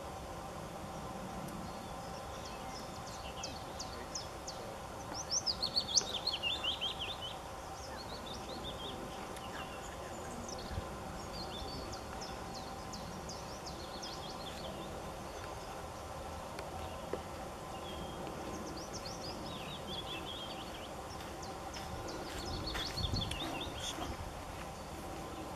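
A songbird sings three short songs, each a quick series of notes falling in pitch; the first is the loudest. Under them runs a steady, even hum of outdoor background noise.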